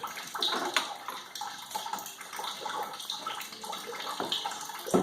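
Water trickling and dripping out of wet sawdust-and-paper pulp squeezed in a jack-driven briquette press, a steady hiss with many small drip clicks. A louder knock comes near the end.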